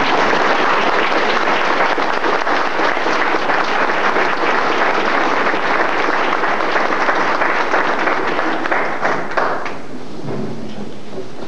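Audience applauding, many hands clapping in a dense, steady patter that dies away about ten seconds in.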